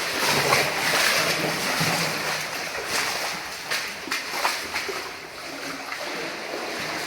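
Water rushing and splashing in a cave passage, an uneven steady noise, with a few sharp knocks around the middle.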